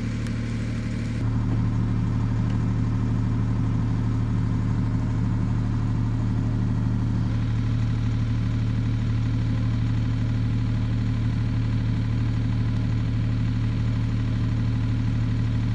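Valach R5-420 five-cylinder radial engine of a large-scale RC model plane idling steadily, a little louder from about a second in.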